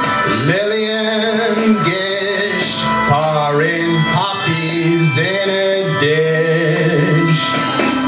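A man singing long, gliding, held notes into a handheld microphone over accompanying music.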